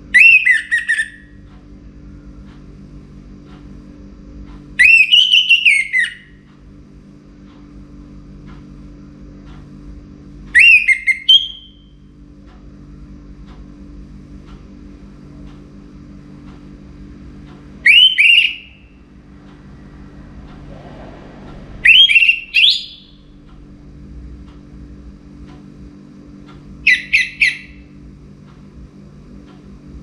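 Caged orange-headed thrush singing: six short, loud whistled phrases a few seconds apart, each about a second long. A low steady hum runs underneath.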